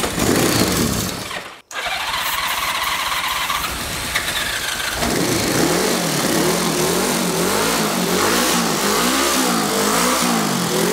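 1981 Honda GL1100 Gold Wing's flat-four engine being cranked over. About five seconds in it catches and runs rough, its revs rising and falling over and over.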